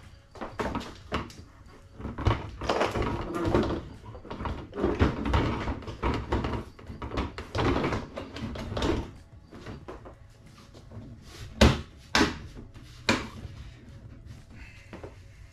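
Plastic rear bumper cover of a 2022 Subaru WRX being handled and fitted back onto the car: several seconds of scraping and rubbing of plastic, then a few sharp knocks as it is pushed into place.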